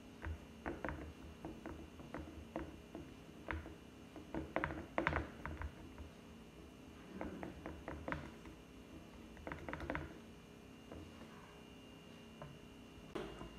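Fingers patting and pressing soft flour-and-parsley dough flat in a nonstick frying pan: irregular soft taps and small sticky slaps, in clusters, that mostly stop about ten seconds in.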